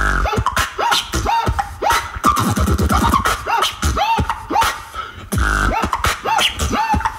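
Solo beatboxing into a microphone: a fast, dense rhythm of vocal kick drums and sharp clicks, woven with repeated short rising-and-falling pitch swoops that imitate record scratching.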